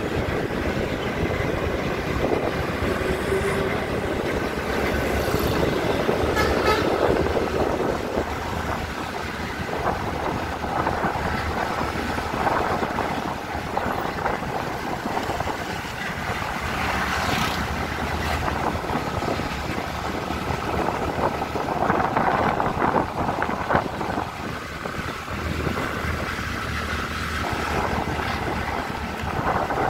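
Road vehicles driving: a tipper truck ahead and the vehicle following it, giving steady engine and road noise with a low engine hum.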